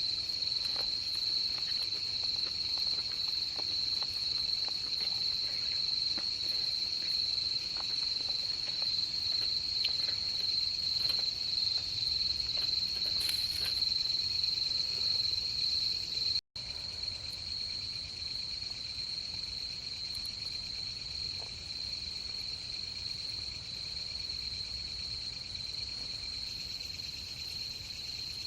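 Steady chorus of insects, a continuous high-pitched trill, with faint scattered clicks in the first half. The sound drops out for an instant just past halfway.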